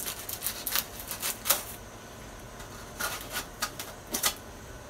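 Scattered clicks, taps and crinkly rustles of hands working at the paper and foil wrapping on an old outboard motor. The clicks come in two clusters, one early and one about three seconds in.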